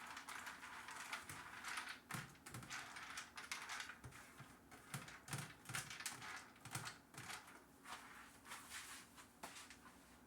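Soft, irregular pats and rustles as freshly washed pumpkin seeds are patted dry on a baking pan. They stop just before the end.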